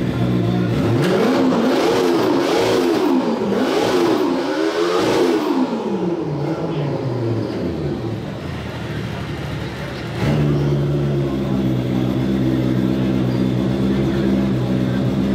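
Snowmobile engine idling, then revved three times in quick succession, each rev rising and falling in pitch, before dropping back down. About ten seconds in, a louder, steady engine note starts abruptly and holds.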